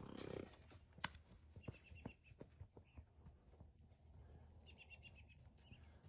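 Near silence: faint outdoor quiet with a few soft clicks and two brief bursts of quick, high chirping, about two seconds in and near the end.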